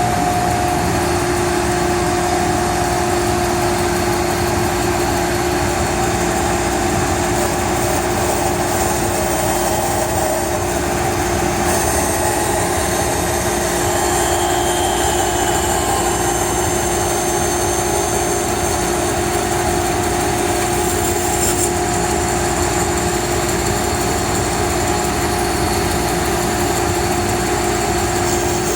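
Band saw running at a steady speed, a constant motor hum with an unchanging tone.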